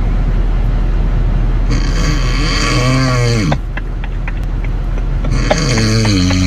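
A man snoring loudly, like a ship's horn: two long snores, each ending in a pitched tone that slides down, over a steady low hum.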